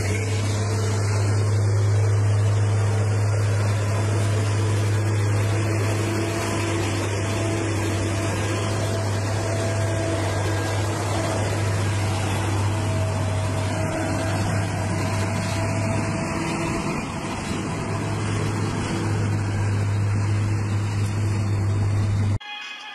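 Heavy semi-truck diesel engine running steadily with a deep, even hum, hauling tipper trailers on a dirt road, with a wide rushing noise of wind and tyres over it. It cuts off suddenly near the end.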